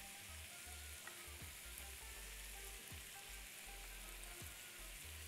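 Chopped vegetables sautéing in butter in a frying pan, giving a faint, steady sizzle.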